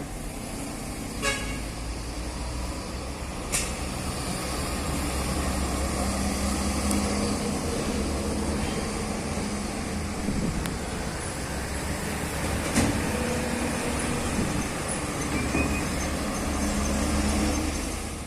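Heavy diesel engine running steadily with a deep rumble and a held drone, getting a little louder a few seconds in. A few sharp clicks or knocks sound over it, the clearest about a second in, at three and a half seconds and near thirteen seconds.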